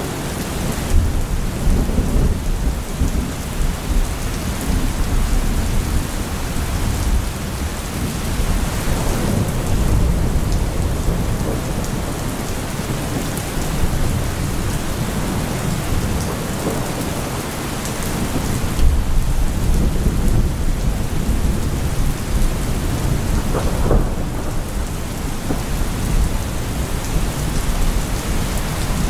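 Steady heavy rain with low rolling thunder that swells and fades several times, loudest about two seconds in, around two-thirds of the way through, and again near the end.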